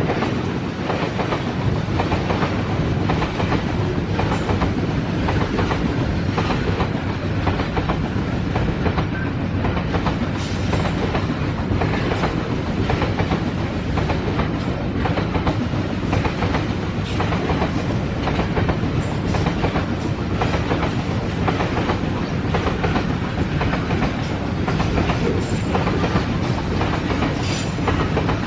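Babaranjang coal train's wagons rolling past at close range, a steady rumble with wheels clicking continuously over the rail joints.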